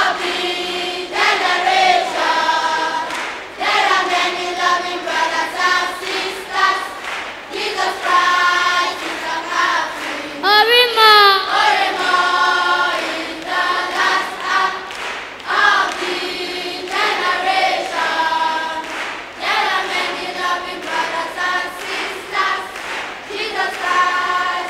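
Children's choir singing a gospel song in repeated sung phrases, with one voice sliding sharply up in pitch about ten seconds in.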